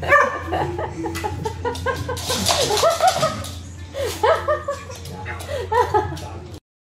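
People laughing in repeated bursts, with some voice mixed in; the sound cuts off suddenly about six and a half seconds in.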